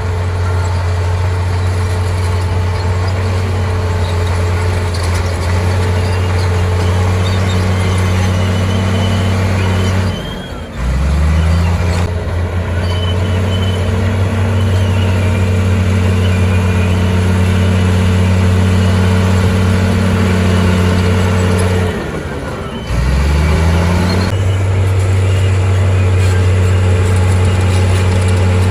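Heavy diesel engine of earthmoving machinery running hard at steady high revs. Twice the engine note sags sharply for about a second and then climbs back.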